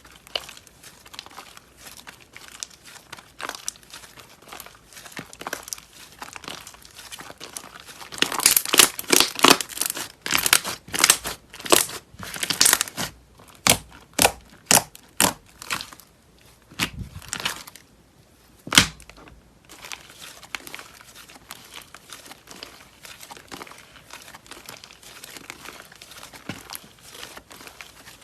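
Slime being squeezed and stretched by hand, crackling and popping with a crinkly texture. A run of louder, quick snaps comes about a third of the way in, and one sharp pop follows a few seconds later.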